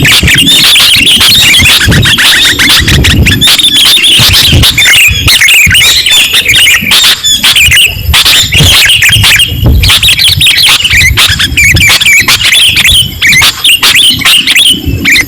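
Sooty-headed bulbuls calling in quick, overlapping chirps, played back very loud as a lure call.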